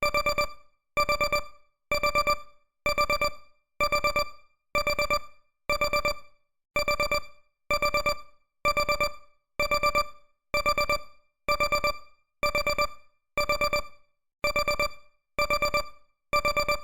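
Electronic countdown-timer alarm beeping in bursts of four quick beeps, about one burst a second, signalling that the countdown has run out.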